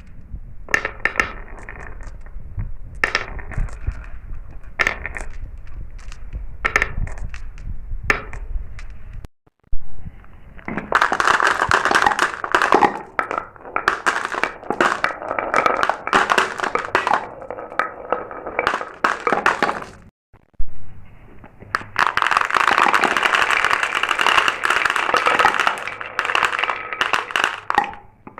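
Glass marbles rolling and clattering down a marble run track: a continuous rattle of small clicks and knocks, growing busier in the second half. The sound cuts out briefly twice.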